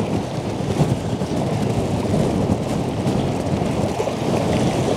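Gusty wind blowing across the microphone: a steady, dense rushing rumble, with a fainter hiss above it.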